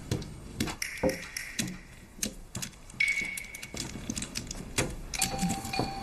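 Mahjong tiles clattering as hands shuffle them over a cloth-covered table: a run of irregular clicks. Music comes in near the end.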